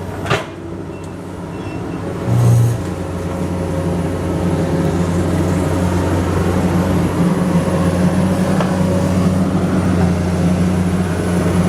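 Komatsu PC200 excavator's diesel engine running under working load, a steady drone that grows louder about three seconds in and then holds. A brief loud low burst sounds about two and a half seconds in.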